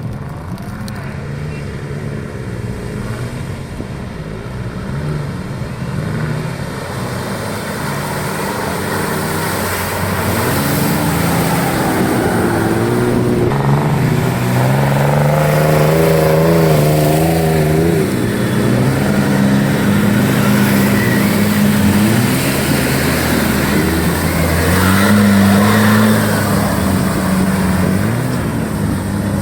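Off-road 4x4 engine revving hard, its pitch rising, falling and wavering again and again. It grows louder about a third of the way in.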